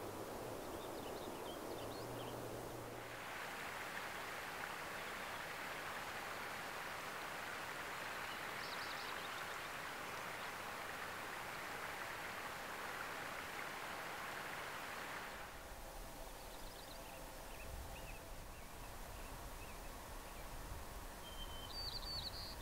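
Faint outdoor ambience of steady hiss, with a few short high bird chirps now and then. A low rumble comes in over the last few seconds.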